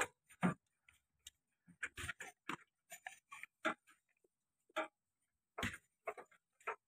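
Irregular metallic clicks and light taps, roughly two a second, as a bolt and nut are worked by hand into the bore of a cast-iron tractor hydraulic control housing during assembly.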